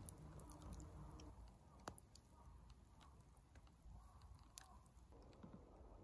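Near silence: campfire embers under a spit-roasting whole chicken, with faint scattered crackles and ticks.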